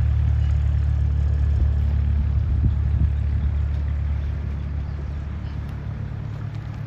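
Twin-turbine Bell 412 helicopter departing: a steady low rotor throb that fades gradually over the last few seconds as it moves away.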